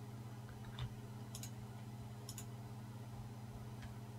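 Four faint, scattered clicks from a computer mouse and keyboard over a steady low hum.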